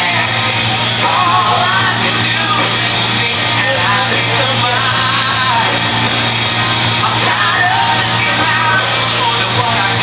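A rock song playing loudly, with a singer's voice over the music throughout.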